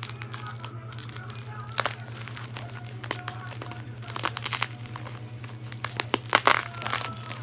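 Bubble wrap and clear plastic packaging crinkling and crackling as it is handled around a doll head, in many short crackles with a louder cluster about six seconds in. A steady low hum runs underneath.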